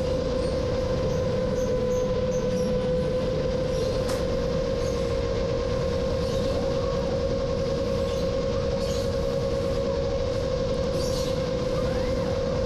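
Rajawali Fold 7 long-range FPV quadcopter in flight, its motors and propellers holding a steady whine over a rush of noise.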